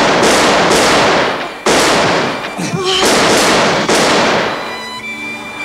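A rapid string of pistol shots, several within a few seconds, each a sharp crack with a long, hissing tail. Orchestral strings come in near the end.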